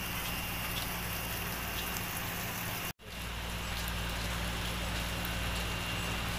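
Steady rain falling outdoors: an even hiss with faint scattered drip ticks. The audio drops out for an instant about three seconds in.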